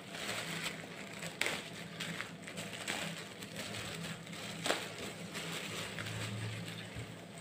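Thin plastic bread bag rustling and crinkling as hands pull slices of bread out of it, with a few sharper crackles, the loudest near the middle.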